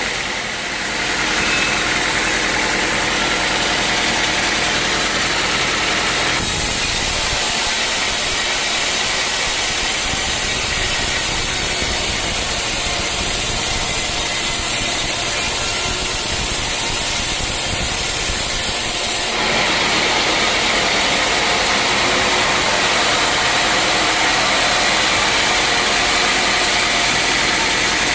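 A sawmill running steadily while sawing teak logs. From about six seconds in to about nineteen seconds in, a brighter, hissier noise takes over, then drops back to the steadier running sound.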